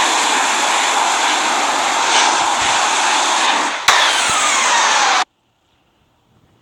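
Loud, steady jet engine noise from a landing Southwest Airlines Boeing 737. About four seconds in there is a click, then a falling whine, and a second later the sound cuts off abruptly.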